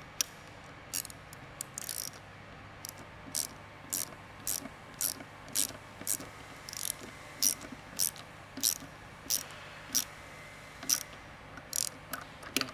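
Hand ratchet wrench clicking in short bursts, about two strokes a second, as the bolts holding the supercharger to the engine's cylinder heads are run down.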